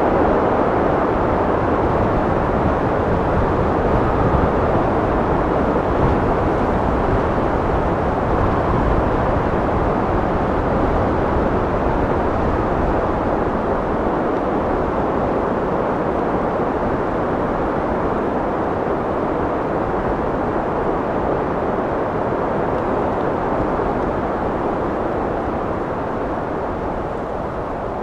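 Steady wind blowing, a deep rushing noise with slow swells that eases off slightly near the end.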